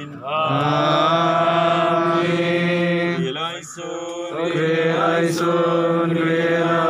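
Men's voices chanting a slow liturgical hymn in long held notes, with a brief breath pause about three and a half seconds in.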